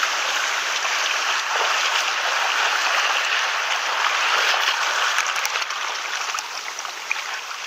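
Seawater washing and trickling between shoreline rocks and boulders, a steady rushing hiss, with a few faint clicks near the end.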